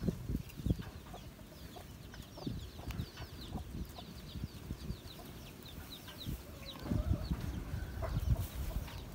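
Birds chirping in the background, many short falling chirps, over low thumps and rubbing close to the microphone that grow louder near the end.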